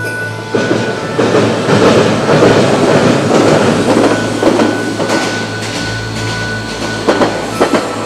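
Hiroden (Hiroshima Electric Railway) tram running past on its rails: a steady rumble of wheels on track, with a few sharp rail-joint clicks near the end.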